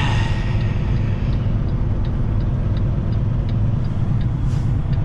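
Semi truck's diesel engine running steadily at low speed, heard from inside the Kenworth cab, with a faint regular ticking about two to three times a second.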